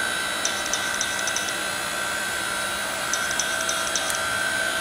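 A KM Grand KMG8T electric hydraulic log splitter's 1500 W motor and hydraulic pump run with a steady whine. Faint light clicking comes twice, about a second in and again about three seconds in.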